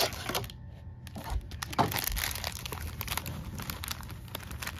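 Sealed plastic baseball card pack wrappers crinkling and rustling as a stack of packs is handled and fanned through, loudest at the start, with a sharper crackle a little under two seconds in.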